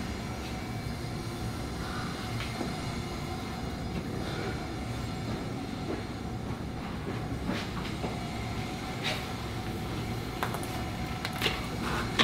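Steady low rumble of background noise, with faint crackles of clear plastic transfer film being peeled slowly off a wetted vinyl floor stencil. The crackles grow more frequent toward the end.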